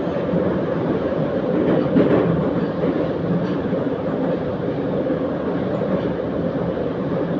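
Running noise inside an 81-714.5 metro car under way between stations: a steady, even rumble of wheels and running gear on the track.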